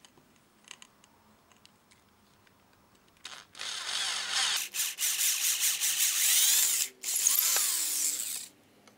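Power drill boring into plywood with a 6 mm screw-tip wood auger bit: a few faint clicks as the bit is set, then the drill runs and cuts from about three seconds in, breaking off briefly twice before stopping just before the end.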